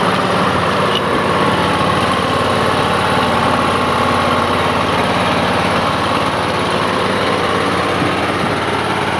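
Scag Cheetah zero-turn mower's Kohler Command Pro EFI V-twin engine running steadily at an even speed.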